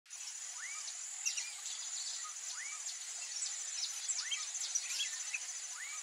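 Several birds calling over a steady, high-pitched insect trill: a short rising call repeats every second or two among many quick high chirps.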